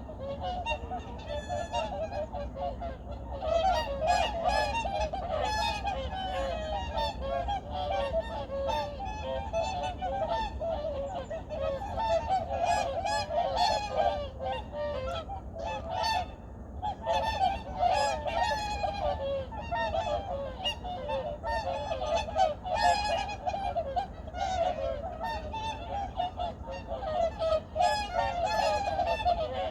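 A large flock of wild geese honking, many calls overlapping in a continuous din, with a brief lull about halfway through.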